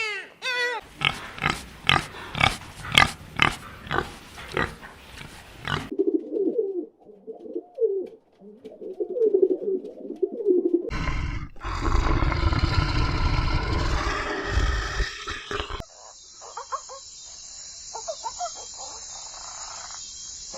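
A run of different animal sounds: rapid repeated calls for the first few seconds, then low grunting calls, then a loud, noisy stretch, and finally faint calls over a steady high hiss.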